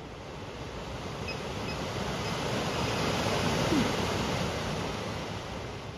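Nissan NV3500 rear HVAC blower motor and fan, run on the bench, spinning up to a rushing whoosh of air that swells to its loudest about halfway through and then eases off, with a brief rising whine near the peak. Its speed follows the square-wave control signal fed to its control wire.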